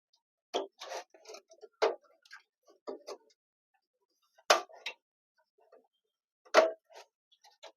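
Irregular sheet-metal clicks and taps as the motherboard panel is pressed and fitted into a computer cabinet, with two louder knocks about halfway through and near the end.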